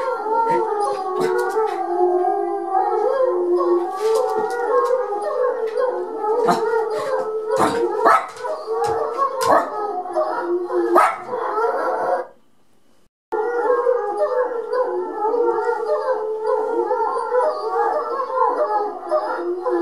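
A pack of wolves howling together in a continuous, overlapping chorus from a television. Sharp clicks cut in repeatedly during the first half, and the sound breaks off for about a second just after the middle.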